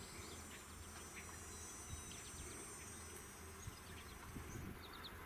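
Faint insect buzzing: a bumblebee's low hum at bee balm flowers, over a steady high-pitched drone of field insects that fades near the end.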